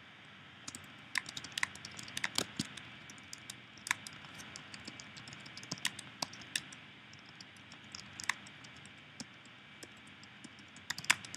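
Typing on a computer keyboard: irregular key clicks in short runs with brief pauses, and a quick cluster of louder keystrokes near the end.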